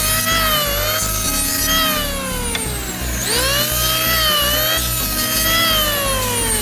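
Electric FEG sheet sander running on a wooden board. Its motor whine jumps up in pitch a little after three seconds and again near the end, sagging slowly in between, over a rough rubbing hum.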